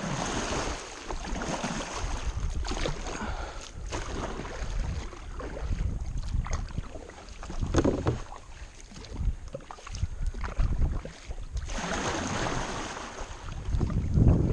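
Kayak paddle strokes splashing in the water, coming in surges every few seconds, with wind buffeting the microphone.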